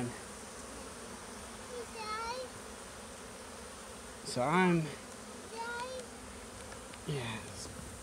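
Honeybees humming steadily over the open frames of a hive full of a busy, strong colony, with a few louder buzzes that bend in pitch as single bees pass close, the loudest about four and a half seconds in.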